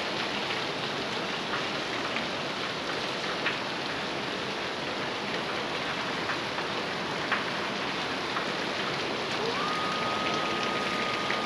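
Heavy rain falling in a steady hiss, with a few faint clicks. A single steady high tone comes in near the end and holds its pitch.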